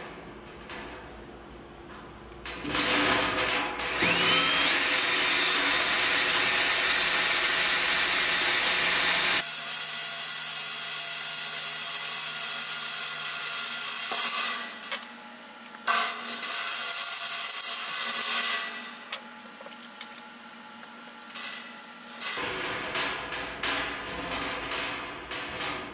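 Cordless drill running a step drill bit through sheet steel in several bursts with short pauses between. In the first long burst the motor's whine rises and then holds steady.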